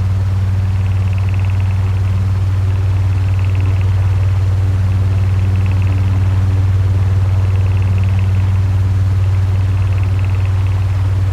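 Electric fan running steadily: a strong low motor hum under an even rush of air. A faint higher whir swells and fades about every two seconds.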